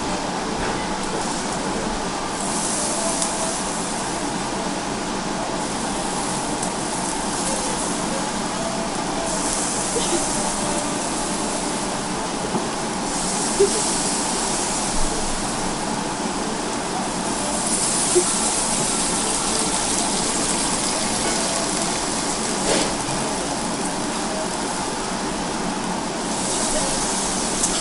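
Yakiniku dinner ambience: meat sizzling on a tabletop grill, the hiss swelling several times, over a steady background of diners' chatter, with a few sharp clicks of tableware.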